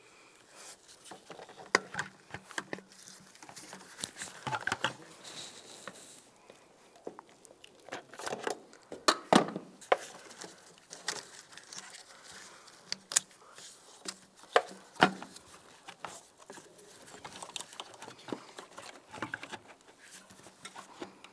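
Irregular clicks, taps and knocks of hand work: hose clamp pliers on a coolant hose's spring clamp, then the plastic coolant reservoir being handled and pressed into place, with light rustling between the knocks. The loudest knocks come a little past the middle.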